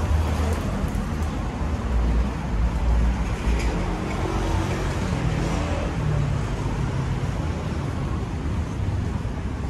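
Wind buffeting the microphone, a heavy low rumble that is strongest in the first few seconds, over the steady noise of street traffic.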